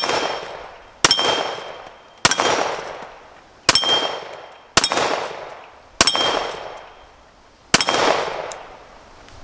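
Springfield Armory 1911 TRP .45 ACP pistol fired in slow, deliberate single shots, about seven, spaced a second or more apart. Most shots are followed by the brief metallic ring of a steel target plate being hit.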